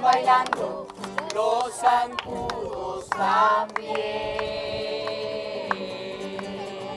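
A group of voices singing a song with instrumental backing. About four seconds in, the moving melody gives way to one long held note.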